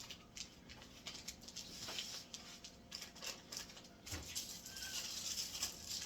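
Faint, scattered light clicks and rustling of small kitchen items being handled.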